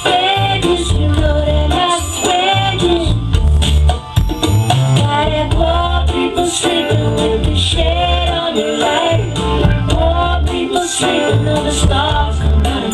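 A recorded song with a sung vocal, guitar and a strong, rhythmic bass line, played loud through a pair of mismatched hi-fi loudspeakers (a Sansui and a Technics) driven by a Jeff Rowland Design Group Model One power amplifier, and picked up by the camera in the room.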